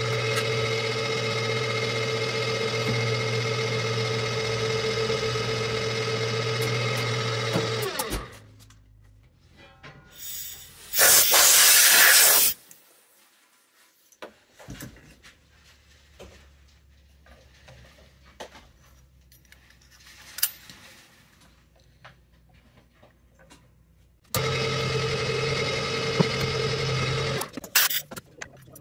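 Milling machine motors running with a steady whine over a low hum for about eight seconds, then stopping. About three seconds later comes a loud hiss lasting about a second and a half. Near the end the machine runs again for about three seconds, followed by a few sharp clicks.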